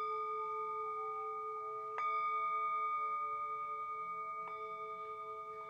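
Tibetan singing bowl struck with a mallet, once at the start and again about two seconds in, with a lighter tap a little past four seconds; after each strike the bowl rings on in a steady, slowly pulsing tone that fades gradually.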